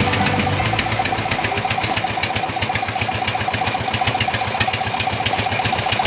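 A boat engine running steadily with a rapid, even knocking beat.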